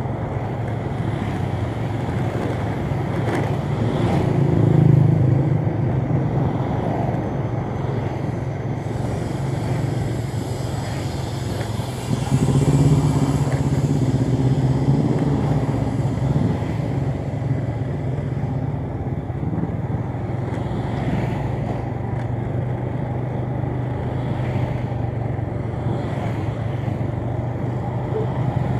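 Motorcycle engine running steadily while riding along a street, with road noise and passing traffic. The engine grows louder twice, about four seconds in and again about twelve seconds in.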